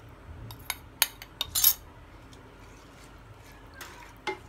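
Metal spoon clinking and scraping against a bowl several times as the last of the chicken stock is scraped out into the pot, followed by a couple of softer knocks from a wooden spatula stirring rice in a steel pot near the end.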